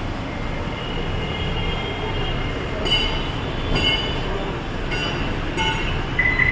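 Vehicle service-workshop ambience: a steady rumbling noise with a few short high squeaks and clicks partway through.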